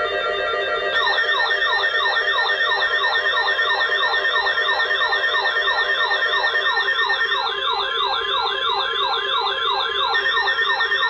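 Electronic yelp siren cycling fast, about three falling sweeps a second, starting about a second in. It is layered over steady held electronic tones.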